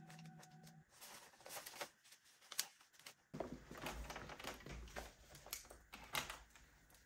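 Paper banknotes flicked and rustled while being counted by hand. Then, with a low hum behind, notebook pages and loose papers rustle on a desk, with a few sharp clicks.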